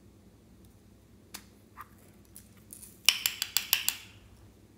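Small plastic mouse-shaped container being twisted and pulled open: a few light clicks, then a quick run of about seven sharp plastic clicks about three seconds in.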